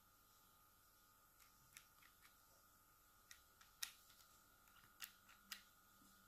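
Faint, scattered clicks and taps of a small plastic foil shaver being handled, in near silence; the sharpest click comes a little before the middle.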